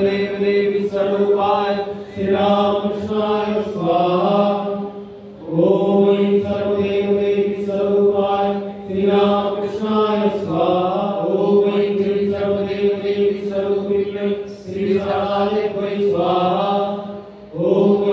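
Hindu fire-offering (homa) mantras chanted on long held notes at a steady pitch, phrase after phrase. There are short breaks for breath about four and five seconds in, and again near the end.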